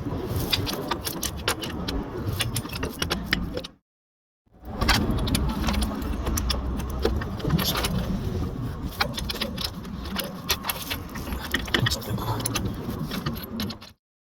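Irregular metallic clinks and rattles of a hand tool working a motorcycle sidestand's bolt, broken by two short dead-silent gaps, about four seconds in and near the end.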